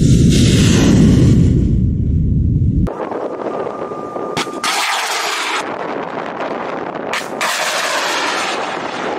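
Tien Chien II surface-to-air missile launching from a truck-mounted launcher: a sudden blast, then a deep rocket-motor rumble for about three seconds that cuts off abruptly. After it comes quieter outdoor noise, broken by several abrupt cuts.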